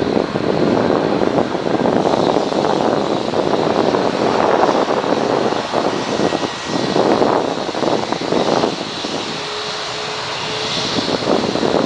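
Four Rolls-Royce Trent 500 turbofans of an Airbus A340-600 at high power on the takeoff roll: a loud, rough jet roar that swells and dips, with a faint steady high whine above it.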